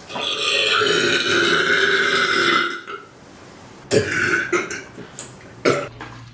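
A man's long, drawn-out burp lasting nearly three seconds. It is followed a second later by a few short, sharp sounds.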